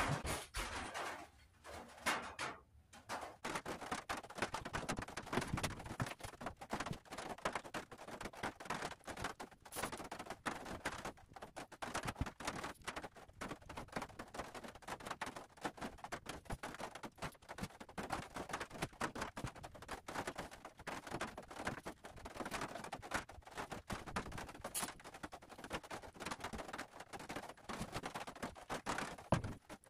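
Fingers rubbing and pressing wood glue into fiberglass mesh tape on a wooden bow stave: a busy, irregular run of small rubbing, smacking and clicking noises.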